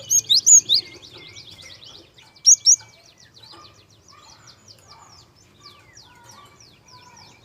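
Gelatik songbird singing a fast, continuous run of thin, high, down-slurred chirps. A few loud, sharp chirps come in the first second and again about two and a half seconds in.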